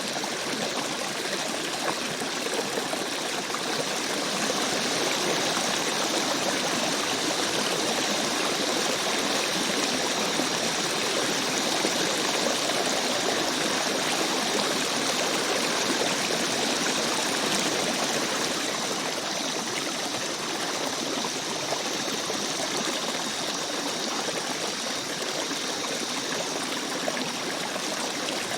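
Rainforest stream flowing and trickling in a steady rush, swelling a little in the middle, with a faint steady high-pitched whine running through it.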